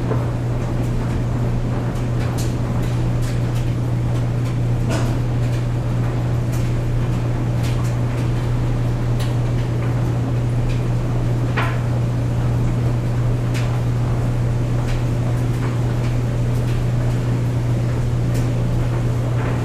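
Clothes dryer running with a steady low hum, with irregular light clicks and knocks from the load tumbling in the drum.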